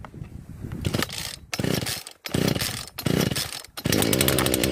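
Poulan 3314 33cc two-stroke chainsaw being pull-started from cold: several hard yanks of the starter cord turn the engine over in separate bursts, and about four seconds in it catches and runs.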